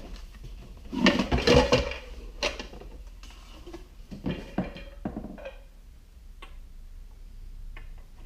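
Hard plastic reloading-press parts and packaging being handled and unpacked: clattering and rustling, with a burst about a second in and another about four seconds in, then a few light clicks.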